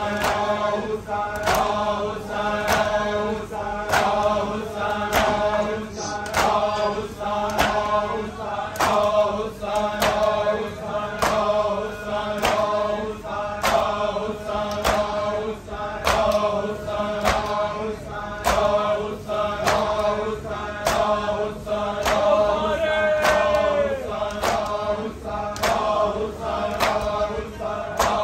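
A group chanting a noha together, held to a steady beat by sharp hand slaps of matam (chest-beating), about three slaps every two seconds.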